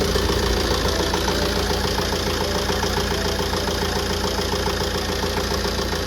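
Tata Safari Storme's 2.2-litre VariCOR diesel idling steadily with an even, rapid clatter. The engine has a misfire and idle vibration, which the title puts down to a P0203 injector circuit fault.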